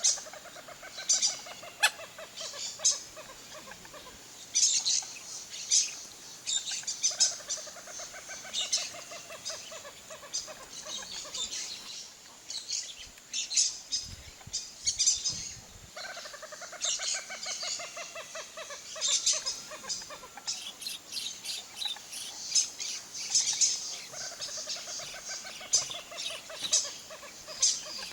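Marsh birds calling: a rapid chattering call that slowly falls in pitch comes four times, each lasting a few seconds and about eight seconds apart, over many short high chirps from smaller birds.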